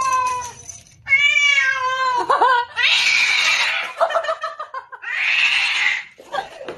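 Domestic cat yowling: two long, wavering meows, then two harsh, noisy cries of about a second each.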